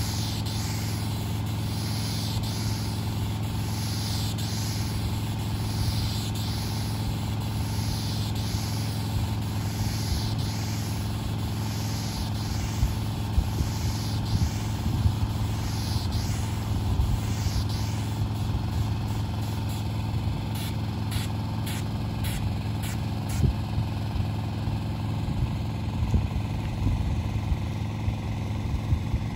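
Asphalt sealcoat spray rig: an engine runs steadily under the hiss of sealer spraying from a hand wand, the hiss rising and falling about once a second as the wand sweeps back and forth. A few short knocks come in the second half.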